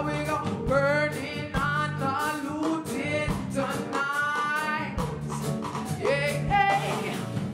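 Live band playing: electric bass, keyboard and drum kit, with a woman's voice singing through the PA over a steady bass line and regular drum beat.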